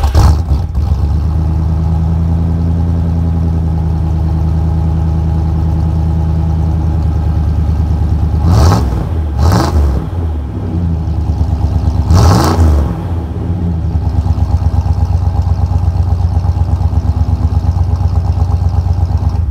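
Ford 460 big-block V8, fuel-injected and rebuilt with raised compression and an RV camshaft, idling through its exhaust at the tailpipe. It is blipped three times, twice in quick succession about eight seconds in and once more a few seconds later. It then settles back to an evenly pulsing idle until it cuts off at the end.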